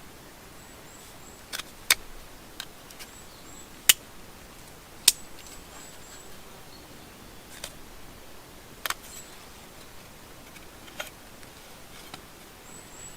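A Swiss Army knife blade whittling a wooden stick, a sharp snick with each cut, about nine irregularly spaced strokes. Faint high chirps sound a few times in the background.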